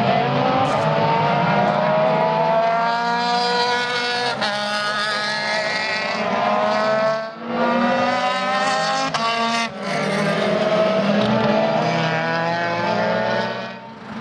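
Formula Renault 2.0 race car engine at high revs, its pitch climbing and then dropping back at each gear change, about four times. It dips briefly about seven seconds in and falls away at the very end.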